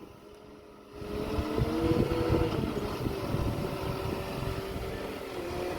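A vehicle engine picks up about a second in and runs steadily, its pitch rising a little and then settling, as the vehicle is moved up a short way.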